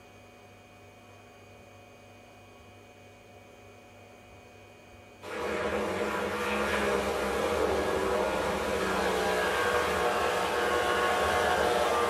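A faint steady hum, then about five seconds in a chainsaw cuts in abruptly and runs loud and steady.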